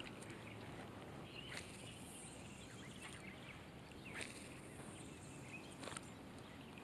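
Faint outdoor ambience in light rain: a soft steady hiss of rain falling on a pond and the foliage around it. There are a few faint chirps, and three soft clicks from the fishing gear or camera being handled.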